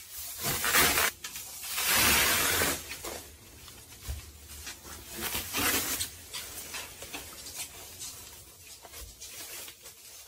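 Hand-work noises while handling a computer's parts: irregular rubbing and scraping, a longer scrape about two seconds in, and a few light knocks.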